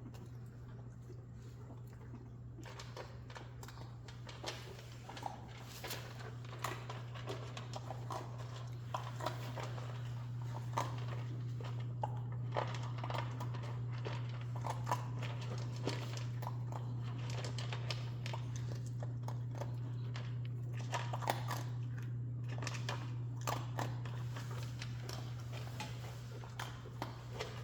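Jack Russell puppies moving about, with many small irregular clicks and scratches, like claws tapping on a floor, over a steady low hum.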